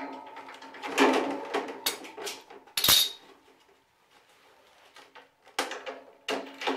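Metal hand tools and hardware clinking and clattering as they are handled and set down on a concrete floor, with a short metallic ring after several of the knocks. A burst of clinks in the first few seconds, a sharp clink around three seconds in, a quiet stretch, then more clanks near the end.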